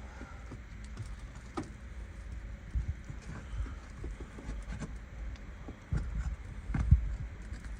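Irregular knocks, taps and scrapes of hand work on asphalt roof shingles as nails are pried out and shingles are worked loose, with a few louder thumps near the end, over a steady low rumble.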